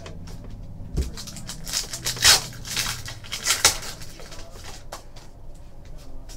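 Trading-card pack wrapper being torn open and crinkled: a burst of crackling about two seconds in that lasts about two seconds. Then come light clicks of cards being flipped through by hand.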